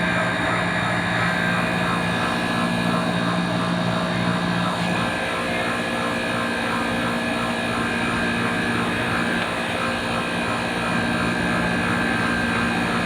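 Manitowoc ice machine running: a steady mechanical drone from its compressor and fan, with several constant tones in it.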